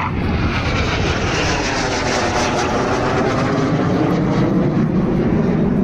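Hawk jet trainers of the Suryakiran aerobatic team flying past low and loud, their jet noise sweeping lower in pitch toward the end as they pass.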